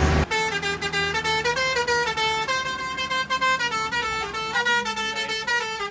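A short tune of clear, held notes with a bright, horn-like tone, stepping up and down in pitch about every half second; it starts abruptly just after the start and runs without road rumble underneath.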